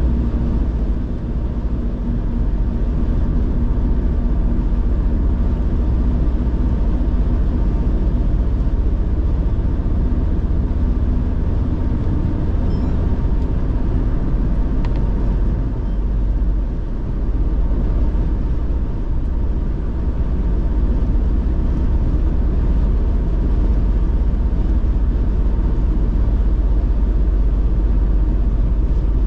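Steady low rumble of road and engine noise from a car driving along a road.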